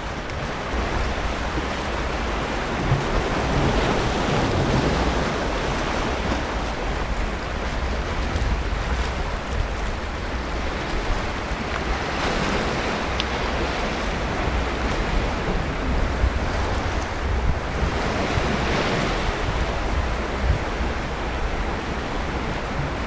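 Sea waves breaking and washing on a beach, a steady surf that swells every few seconds, with wind rumbling on the microphone.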